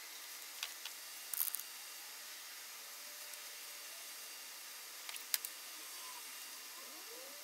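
Faint clicks and taps from handling latex patches and a glue brush at a table, over a steady low hiss: a cluster about a second and a half in and another, the loudest, about five seconds in.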